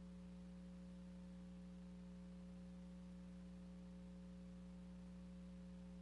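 Near silence: a faint steady hum over light hiss, with no sound from the silent footage itself.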